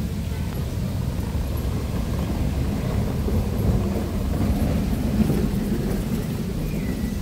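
Wind buffeting the microphone of a handheld phone: a steady low rumble that swells a little midway.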